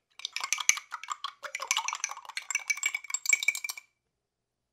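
Metal spoon beating an egg in a small glass cup: fast, continuous clinking of spoon on glass with a light ring. It cuts off suddenly a little under four seconds in.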